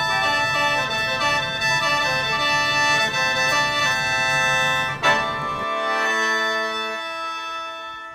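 Instrumental music: a melody of held, organ-like notes that ends on a sustained chord about five seconds in, which then fades out.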